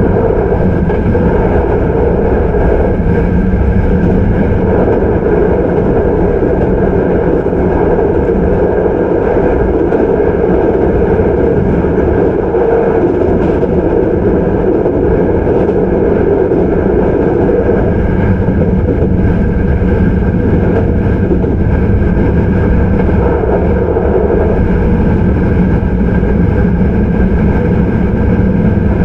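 Hankyu 9300 series electric train (Toyo IGBT-VVVF drive) running at steady speed, heard from inside the passenger car. The wheels rumble on the rails with a steady hum, and there are no marked changes in pitch or level.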